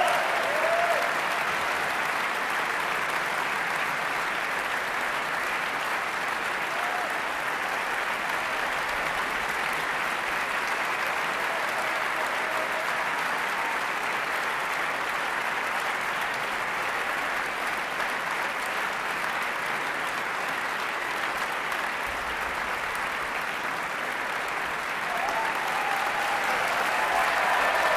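Concert audience applauding steadily, with a few voices calling out over it near the end.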